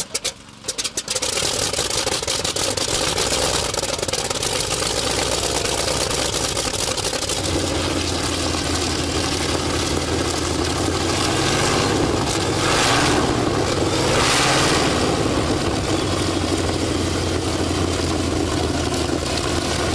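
Pratt & Whitney R-2800 Double Wasp 18-cylinder air-cooled radial engine catching in a few uneven bursts, then running steadily and turning its propeller. The low tone of the engine strengthens about seven seconds in, and it runs briefly louder and harsher twice near the middle.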